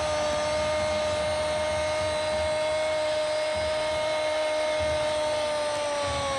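A sports commentator's long, drawn-out "goool" shout, held on one steady pitch and sagging lower near the end, over the noise of a stadium crowd.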